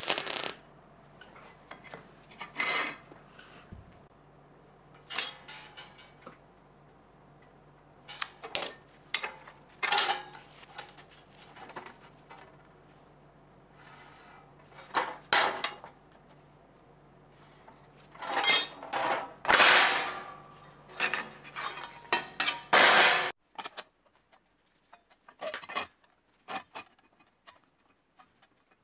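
MIG welder tack-welding steel rod, a short crackling burst at the start, followed by a series of separate metal clanks and rattles as thin steel rod and sheet are handled and bent. A steady low hum runs underneath and stops about 23 seconds in.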